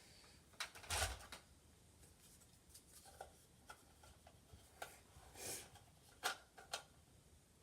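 Faint, scattered clicks and rustles of a Nerf blaster and foam darts being handled and reloaded, with two sharp plastic clicks near the end.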